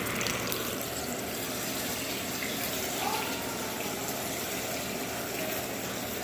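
Battered red snapper pieces frying in hot oil, a steady sizzle.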